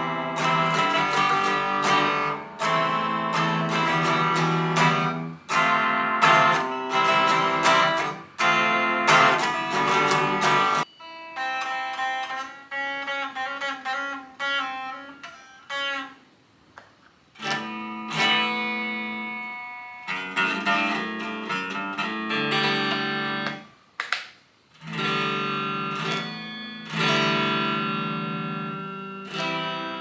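Fender Stratocaster electric guitar strummed in chords, switching to softer picked single notes about eleven seconds in, then a short pause before the strummed chords return.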